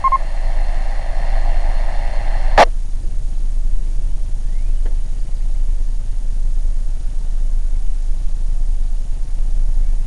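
Two-way radio on the amateur net: a short beep, then an open carrier hiss that cuts off with a squelch click about two and a half seconds in. Under it, a steady low rumble of an idling car engine.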